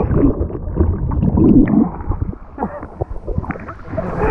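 Muffled gurgling and sloshing of river water with dull knocks, heard dull and without any treble, as from a camera dunked in the water.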